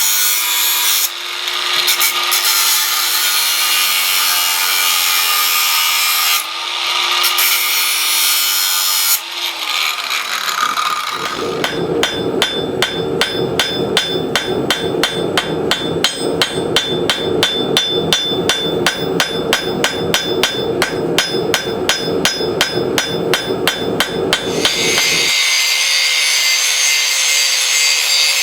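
Steady abrasive rubbing on the steel tomahawk head in several stretches, then about fourteen seconds of rapid, evenly spaced hammer strikes on the steel, then steady rubbing again near the end.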